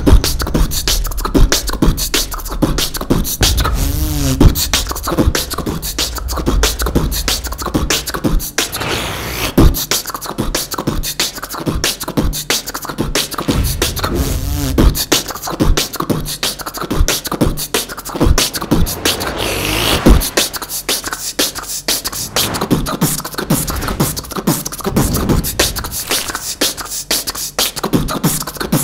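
Human beatboxing: a fast, continuous run of vocal kick and snare sounds that keeps a driving beat, with a few short sliding pitched notes mixed in.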